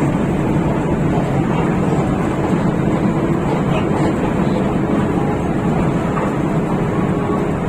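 Steady engine and road noise of a rear-engined Hino RK8 diesel bus under way, an even rumble with no change in pace.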